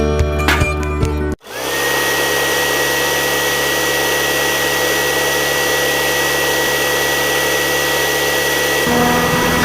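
Guitar music cuts off about a second in, and a small electric motor of a DIY miniature farm machine starts up and runs steadily with a high whine. A lower hum joins near the end.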